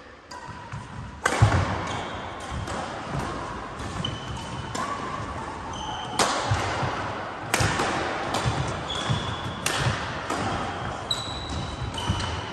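Badminton doubles rally: a string of sharp shuttlecock-on-racket hits about every one to two seconds, echoing in a large hall, with shoes squeaking and footsteps thudding on the wooden court floor.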